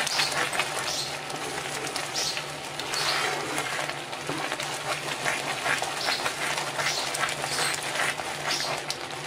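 Wooden spatula stirring a thick, bubbling cashew-and-sugar-syrup mixture for kaju katli in a nonstick pan: repeated wet scraping strokes and bubbling. A steady low hum runs underneath.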